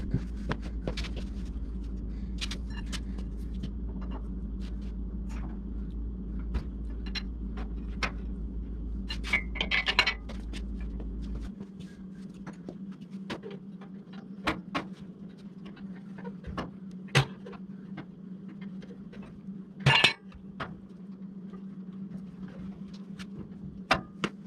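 Scattered metallic clinks, knocks and scrapes of hands-on work around an engine hanging from a shop crane's chain, with two louder jangling rattles about 10 and 20 seconds in. A steady hum runs underneath, and a deeper drone cuts off about halfway.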